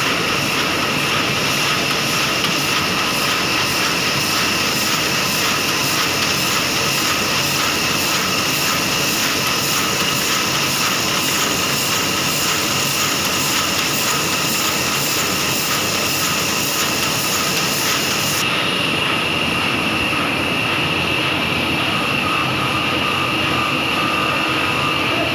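Sheet-fed offset printing press running at speed: a steady mechanical clatter with a fast, even beat and a high whine. The high hiss drops away suddenly about 18 seconds in while the machine keeps running.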